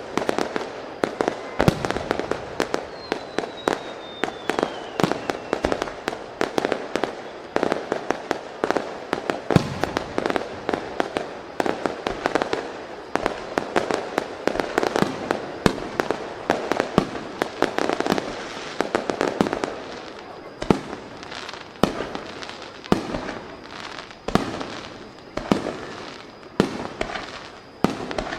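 Fireworks display: aerial shells and smaller bursts going off in rapid succession, several bangs a second, thinning to roughly one a second in the last third. A brief falling whistle sounds about three seconds in.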